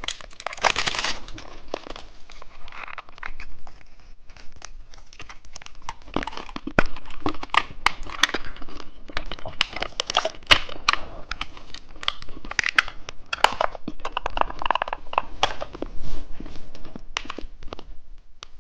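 Plastic candy packaging crinkling and being torn open, a dense run of irregular sharp crackles.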